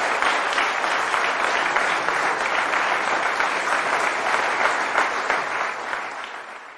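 Theatre audience applauding, a dense steady clapping that fades away near the end.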